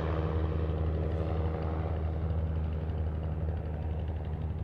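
Single-engine Mooney M20 propeller plane's engine and propeller droning steadily as it flies away, slowly fading.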